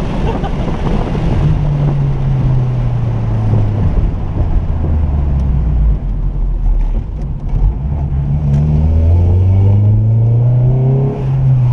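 Engine-swapped Honda Civic EM1 with an Integra Type R four-cylinder, heard from inside the car. The engine note falls away for the first half, then climbs steadily as the car accelerates through the second half.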